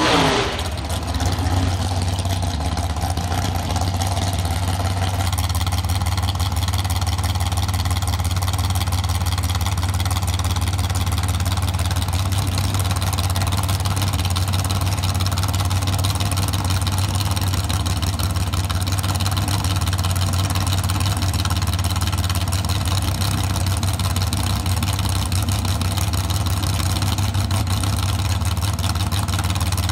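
Super Comp dragster's engine idling steadily at the start line, a low, even rumble that holds unchanged throughout.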